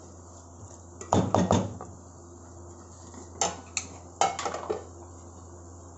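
Wooden spoon stirring a chicken and okra curry in a metal pot, knocking and scraping against the pot in three short bursts: about a second in, around three and a half seconds, and just after four seconds. A steady low hum runs underneath.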